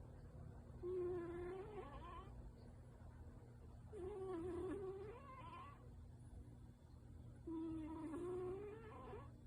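Sleeping brown tabby cat's nose making loud, squeaky whines as it breathes: three drawn-out, wavering whines about three seconds apart, each lasting about a second and a half. The owner wonders whether it is dreaming and talking in its sleep.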